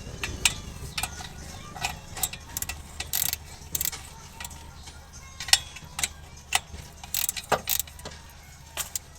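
Irregular sharp metallic clicks and clinks of hand tools and parts being handled during car repair work, over a steady low hum.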